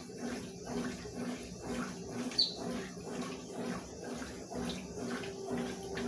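Consul 12 kg top-loading washing machine agitating a sofa cover in rinse water, its motor humming and the water sloshing in a regular rhythm of about three strokes a second. A brief high chirp sounds about two seconds in.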